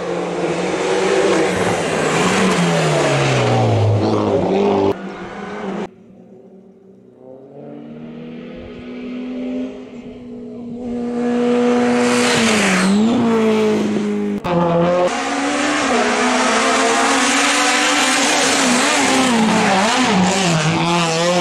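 Hillclimb race cars at full throttle, one after another, with abrupt cuts between short clips. Engine pitch climbs through each gear and drops at the shifts, and one car falls steadily in pitch as it goes past early on. A quieter approach comes up in the middle.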